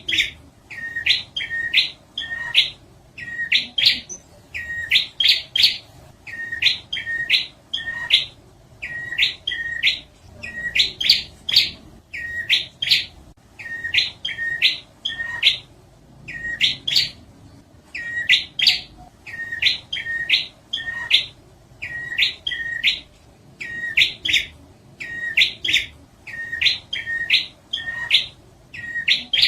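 Prinia (prenjak) song: short, sharp, upward-sweeping notes in quick groups of two to four, repeated about once a second.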